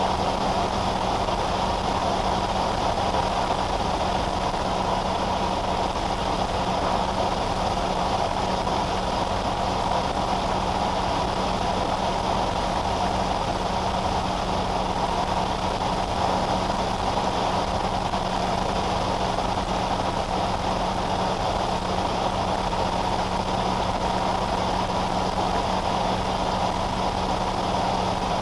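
Steady in-cabin noise of a car cruising on a highway at about 110 km/h: tyre and wind noise with a constant low engine hum, unchanging throughout.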